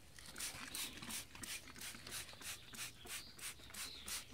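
Hand trigger spray bottle of vinegar being pumped over and over: short hissing squirts, about three a second.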